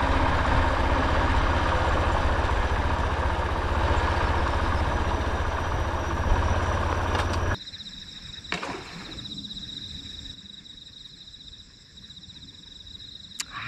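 A motorcycle engine running under way, with wind rush, for about seven and a half seconds before it cuts off abruptly. After that comes a quieter stretch with a steady, high-pitched pulsing trill.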